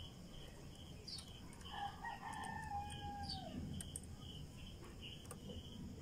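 A rooster crowing once, faint: a single long call of about two seconds that falls away at the end.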